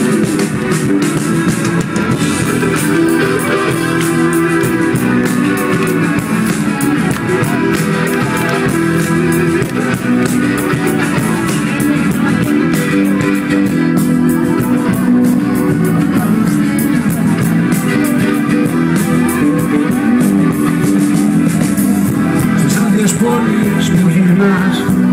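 Live rock band playing with guitars, drums and keyboard, heard from within the audience.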